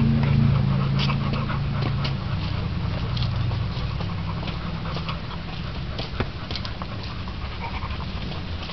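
American bully dog panting, with scattered light clicks. A steady low hum, loudest in the first couple of seconds, lies under it.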